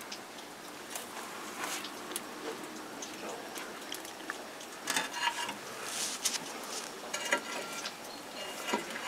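Small scrapes, rustles and clicks as oily rags are worked into a steam engine's firebox and set alight, with a few louder scratchy bursts in the second half.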